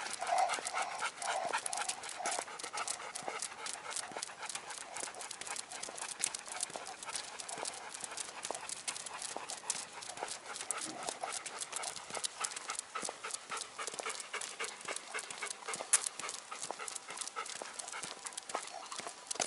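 Two golden retrievers panting as they walk, with a steady patter of quick clicks that fits their claws on the asphalt.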